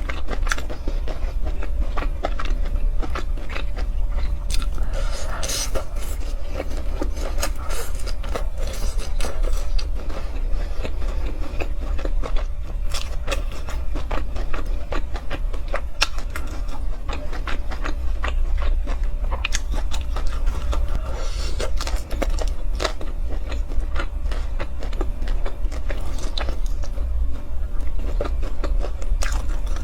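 Close-miked eating: biting and chewing with crunches and many small sharp clicks scattered irregularly, over a steady low hum.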